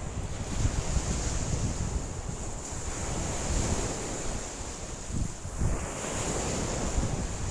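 Lake waves washing against the shore in strong wind, with gusts buffeting the microphone in an uneven low rumble.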